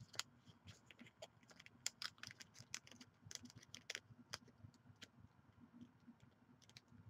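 Faint, irregular scratching and clicking of a die-cut trading card being worked into a card sleeve, the sleeve hard to get on.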